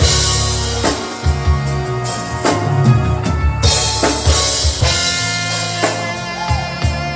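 Band music with a drum kit keeping a steady beat over bass and held notes from other instruments.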